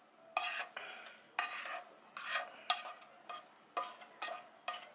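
Silicone spatula scraping cooked apple slices out of a frying pan, the soft slices sliding and dropping into a glass bowl of apples in their juice. A run of short scrapes, about two a second.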